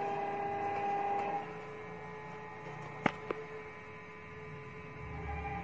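Stepper motors of a CNC plasma table's gantry and Z-axis whining steadily during a dry test run, with the pitch changing about a second and a half in. Two sharp clicks come close together about three seconds in.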